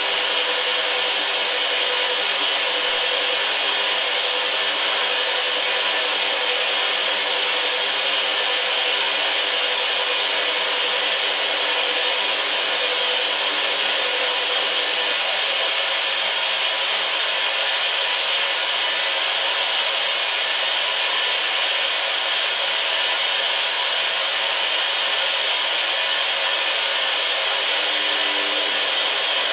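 Hoover washing machine running with a steady hiss that keeps an even level throughout.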